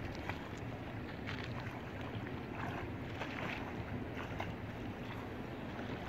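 River water splashing and sloshing around people wading and swimming, with short splashes scattered through. A steady low rumble of wind on the microphone runs underneath.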